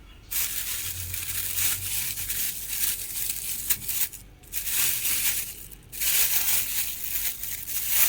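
Shopping bags rustling and crinkling as groceries are handled and unpacked, in three stretches with short breaks about four and six seconds in.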